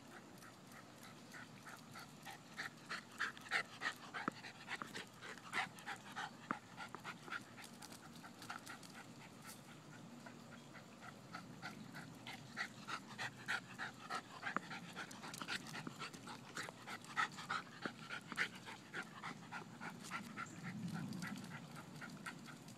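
A dog panting in runs of quick short breaths, about three a second.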